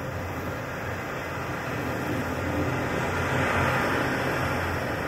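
A steady low rumbling drone under a hiss, swelling slightly a little past three seconds in.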